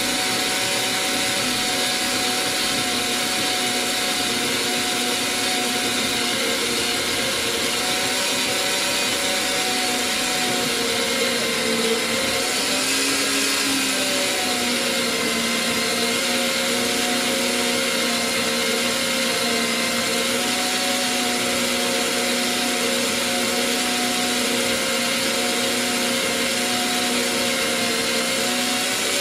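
Parkside portable metal band saw running under load, its blade cutting through a rusty steel bar: a steady motor whine over the blade's rasp, with a brief shift in pitch about halfway through.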